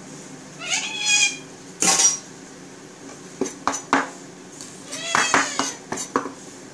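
A cat meows, about a second in and again near five seconds, while a chef's knife chops chilies on a wooden chopping board in quick, sharp knocks.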